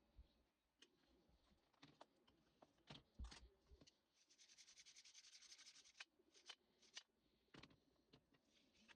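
Faint clicks and light knocks of small parts or tools being handled, with a two-second stretch of rapid fine rasping or ticking near the middle.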